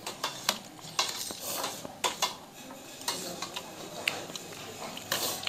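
A metal spoon scraping and clinking against a steel thali plate, in irregular sharp clicks.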